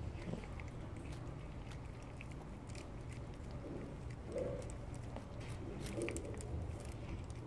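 Stray cat eating, with wet chewing, smacking and small clicking bites, and a couple of brief low throaty noises about four and six seconds in: the strange sounds this cat makes while it eats.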